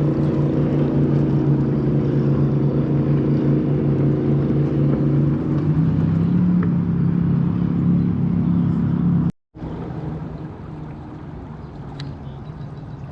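An engine running steadily with a low hum, its pitch shifting slightly about six seconds in. It cuts out abruptly past nine seconds and comes back quieter.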